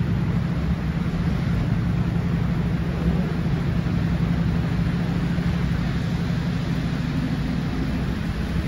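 City bus engine running steadily with a low hum amid idling traffic.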